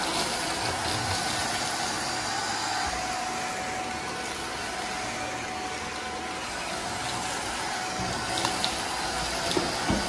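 Redroad V17 cordless stick vacuum running very quietly in eco mode with its turbo brush head moving over the floor: a steady whoosh of airflow with a faint constant whine.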